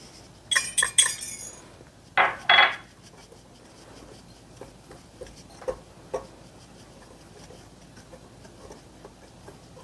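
Clinks of kitchenware against a glass mixing bowl, then a wire whisk quietly stirring flour and spices in the glass bowl, with a few faint taps.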